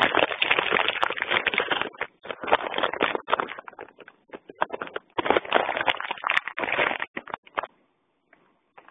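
Heavy rain pouring down, heard through a phone's microphone as a dense rushing noise that surges and dips, then falls away shortly before the end.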